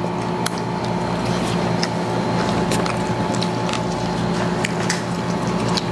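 Steady machine hum, with scattered light clicks and squishy sounds of fried chicken and food being eaten and handled in paper packaging.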